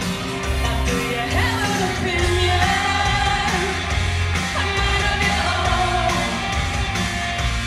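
Live rock band playing loudly: a woman singing lead into a microphone over electric guitar, bass and drums.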